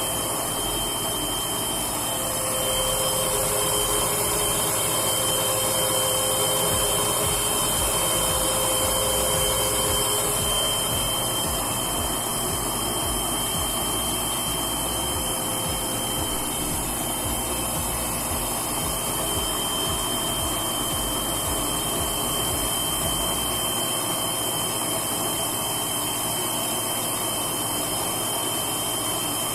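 Washing machine fitted with a new drain pump, running its drain and spin cycle: a steady mechanical whir with a high hiss and a constant high tone, draining properly now. The low rumble drops away near the end.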